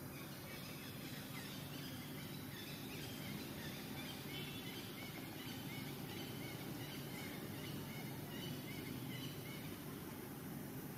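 Steady outdoor background noise with many faint, short, high chirping calls repeating throughout.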